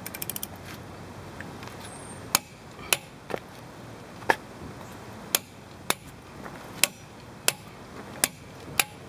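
Wrench tightening the lug nuts on a truck wheel. A short run of rapid ratchet clicking at the start, then about ten sharp single metallic clicks, spaced roughly half a second to a second apart.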